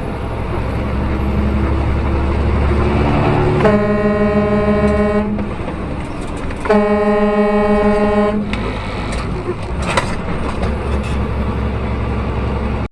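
Vehicle horn sounding in two long blasts, each about a second and a half, over steady road and engine noise. A few sharp clicks follow near the end.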